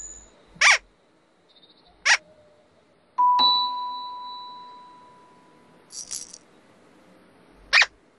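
Children's-show sound effects: short whistles that fall quickly in pitch, three times. A little over three seconds in comes a single bell-like chime that rings on and fades away over about two seconds.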